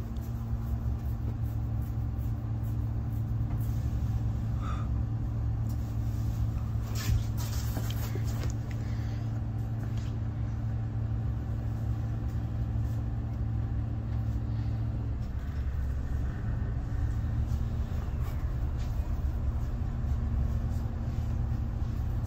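Low-floor city bus engine idling steadily while the bus stands still, heard from inside the cabin near the front, with a few light rattles. About two-thirds of the way through, the engine note dips briefly and recovers.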